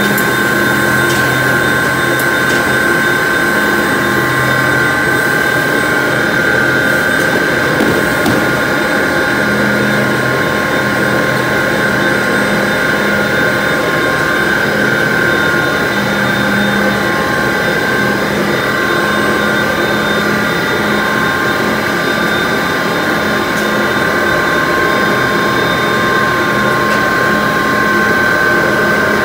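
Steady drone of HDPE pipe-factory machinery, with a constant high whine over a lower hum that swells and fades every few seconds.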